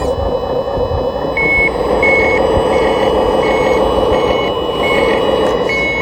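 Vehicle reversing alarm beeping at a steady pace, about seven short beeps starting a little over a second in, over a steady engine rumble.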